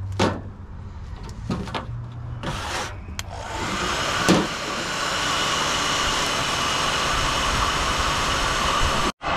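Electric heat gun switched on and running, blowing a steady rush of hot air to soften PVC pipe. A few knocks and clicks of handling come first, and the blowing starts a little over three seconds in.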